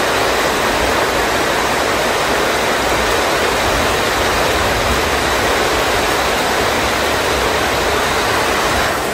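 Heavy downpour: a steady, even rush of rain falling on roofs and the ground, with no thunder.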